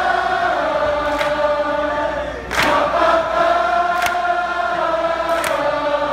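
Many voices singing long held notes together like a chant, at a live concert, with a sharp hit on the beat about every second and a half, four times.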